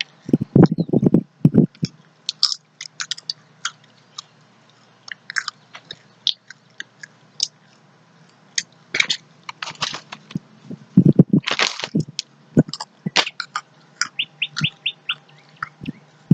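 Crunchy chewing of Pringles Bites potato chips close to the microphone: irregular sharp crackles, with a few longer crinkling rustles of the foil snack bag. A quick run of short high chirps comes near the end.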